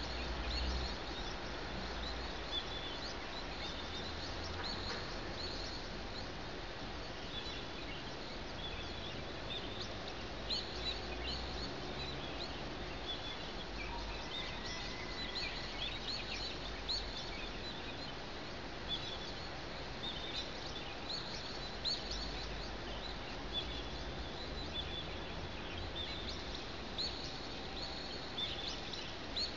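Small birds chirping at dawn: many short, high calls repeating on and off, over a steady low rumble.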